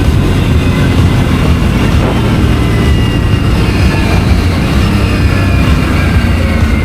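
Aprilia RS 457's parallel-twin engine running steadily under way, its pitch easing down slightly over the last few seconds. Wind rush comes through the helmet chin-mounted camera's mic.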